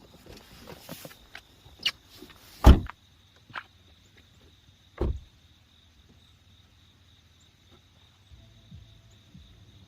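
A handful of sharp knocks and thumps, the loudest about three seconds in and another about two seconds later, then quiet.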